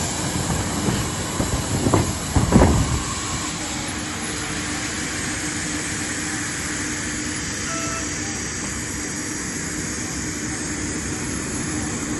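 Airbus A330 emergency evacuation slides inflating: a rushing hiss that fades over the first second or so, then two short loud bursts about two seconds in. After that a steady hum with a low tone.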